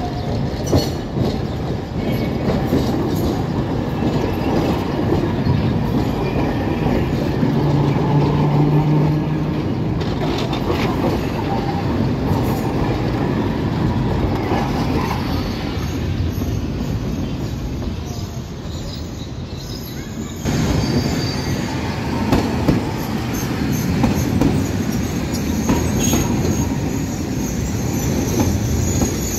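Alexandria Raml trams passing close by, their steel wheels rumbling and clanking over the rails, with a faint high wheel squeal in the later part.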